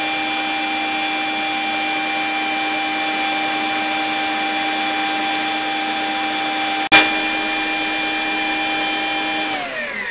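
Electric stand mixer with a wire whisk running at high speed, a steady motor whine, while creaming margarine and sugar for a butter cake batter. A single sharp click comes about two-thirds through, and near the end the whine slides down in pitch as the mixer is switched off and winds down.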